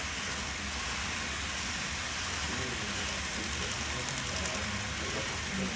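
N-gauge model train running along the layout track: a steady rolling hiss.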